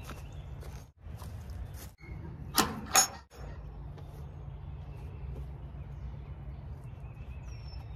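Wooden chicken-run gate being opened: two sharp knocks of the gate and its latch, under half a second apart, over a steady low rumble.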